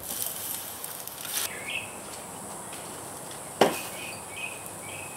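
Water being poured from a pitcher into a foil water pan over hot charcoal, hissing, stops about a second and a half in. After it come a run of short high chirps over a steady high drone, and one sharp click just past the middle, the loudest sound.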